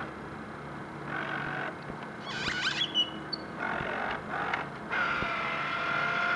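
Motor of a radio-controlled model boat whining at a steady high pitch, cutting in and out in short bursts as the throttle is worked, with a longer, louder run near the end. A brief flurry of high chirps sounds about two and a half seconds in.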